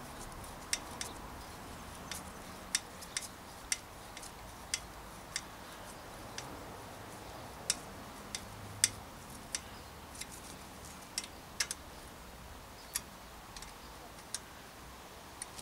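Sharp metal clicks, irregular and about one or two a second, from a hex key working the mounting bolt of a Shimano Deore cantilever brake arm on a steel frame's brake boss.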